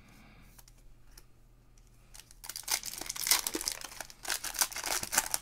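Plastic crinkling and crackling as trading cards are handled in their sleeves and wrapping. It starts about two and a half seconds in, after a quiet start, and goes on in quick, irregular rustles and clicks.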